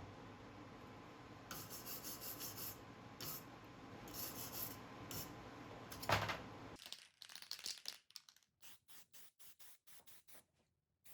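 Faint rubbing and scraping: a steady hiss with irregular bursts and one louder scrape about six seconds in, then short, even scraping strokes, about three or four a second.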